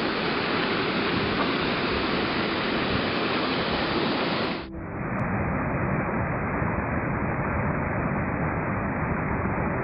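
Rushing water of a small waterfall on a rocky mountain stream, a steady even rush of noise. About halfway through it cuts, with a brief dip, to a more muffled take of the same rushing water.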